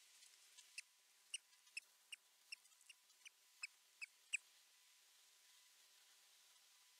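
Osprey giving a series of about a dozen short, sharp, high chirps in quick succession, each dropping slightly in pitch, the last one the loudest, then stopping. These are alarm calls at a predator's presence near the nest.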